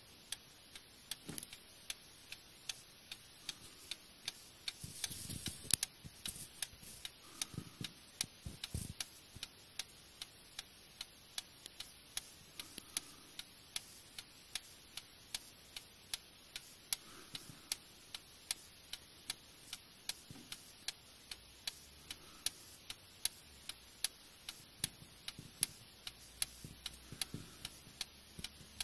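A 19th-century Paris clock movement (Vincenti, 1856 silver medal) with a front-mounted escapement, ticking steadily with sharp, even beats, about two to three a second, as its pendulum swings: the movement is running properly. A few low bumps sound in the first third.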